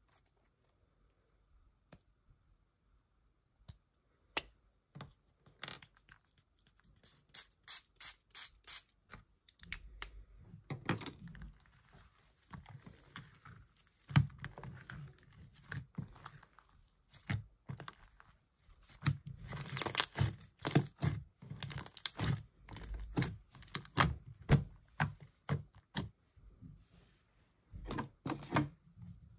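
Homemade slime being kneaded and stretched by hand as borax activator is worked in, giving irregular clusters of sticky clicks and pops with soft thumps. The sounds are busiest and loudest about two-thirds of the way through.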